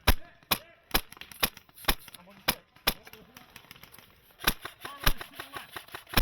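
Airsoft rifle firing single sharp shots, about two a second, followed by a quicker string of shots from about four and a half seconds in. The rifle is plausibly the player's Wolverine MTW M4, run on HPA.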